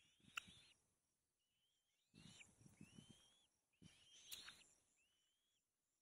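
Kites at a nest during feeding give several thin, rising whistled calls that arch over. They come over three bursts of scratchy rustling with a couple of sharp clicks.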